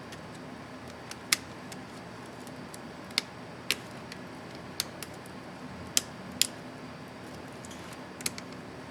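Sharp plastic clicks, about a dozen at uneven intervals, from a spacebar keycap being worked on an ASUS ZenBook UX31E laptop keyboard, over a steady low background hum.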